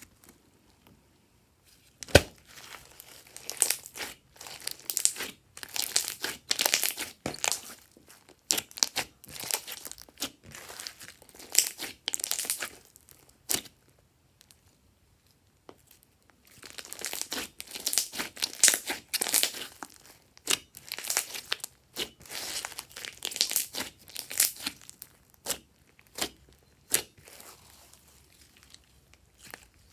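Glossy slime being squished and stretched by hand: bursts of sticky crackling and clicks. They start about two seconds in and pause briefly near the middle.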